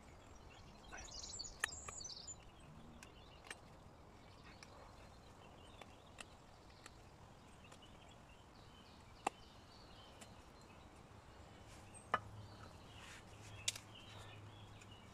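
Knife cuts biting into a birch branch while a beaver cut is carved: a handful of sharp, isolated clicks a few seconds apart. Birds chirp briefly near the start.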